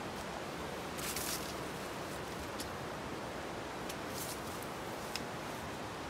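Footsteps and leaves rustling as someone walks through forest undergrowth, with a longer brush about a second in and a few short ones later, over a steady rushing hiss.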